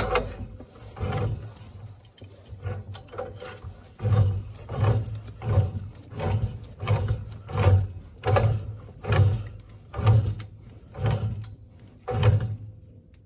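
Threaded black steel gas pipe being wrenched tight into a boiler gas valve, the doped threads creaking and grinding with each turn. The creaks come in a steady rhythm, about one every three quarters of a second.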